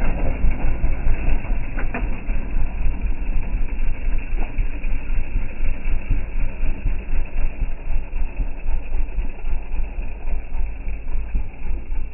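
Small dirt bike engine running at low speed as it is ridden around, a steady pulsing sound that eases slightly near the end.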